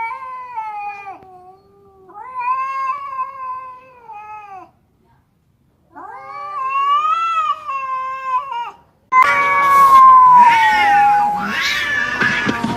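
Domestic cats caterwauling in a territorial standoff: long, drawn-out yowls that waver in pitch, three in a row with short pauses. About nine seconds in it turns suddenly louder and harsher, with a long falling yowl over a noisy, hissing edge.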